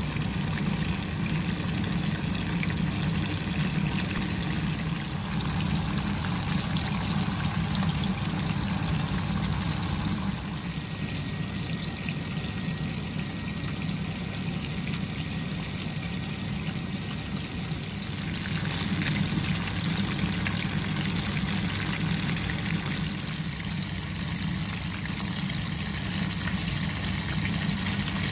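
Hot oil sizzling and bubbling steadily as pieces of karaage deep-fry in a pan. The sound shifts abruptly in tone a few times.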